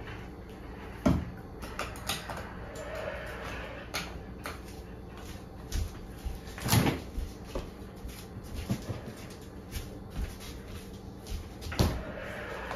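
Hard plastic cups and a plastic juice bottle knocked and set down on a table: a handful of sharp knocks and clunks, the loudest about a second in, in the middle and near the end, over a steady low hum.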